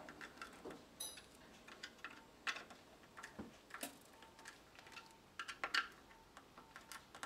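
Faint, irregular small clicks and ticks of a screwdriver working the fixing screws of a metal wall-light bracket while it is levelled, with a few clicks close together about three-quarters of the way through.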